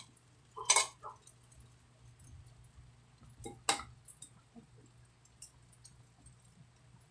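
An egg being tapped against the rim of a clay pot and broken open over the rice: a pair of sharp clinks near the start, another about three seconds later, then faint small clicks.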